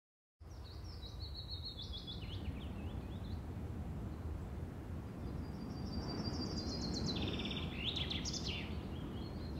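A songbird singing high chirping phrases and trills in two bouts: one about a second in and another from about six to eight and a half seconds. Under it runs a steady low rumble of outdoor background noise.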